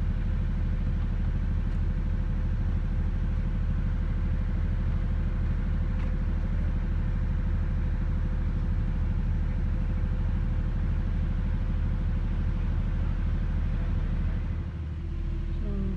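A steady low engine hum that dips briefly near the end.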